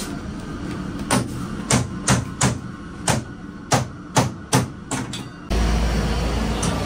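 Food being chopped with a cleaver on a cutting block: about nine sharp blows at an uneven pace. About five and a half seconds in, it cuts to steady traffic rumble.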